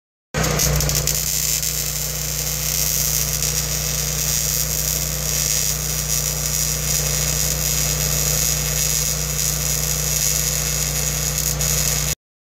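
Electric arc welding square steel tubing to a steel plate: a steady crackling hiss over a low hum. It starts about half a second in and cuts off suddenly near the end as the arc is broken.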